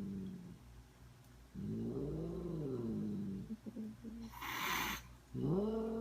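Angry cat giving long, low growling yowls that rise and fall in pitch, two in full, with a short hiss about four seconds in: the cat is annoyed at being teased.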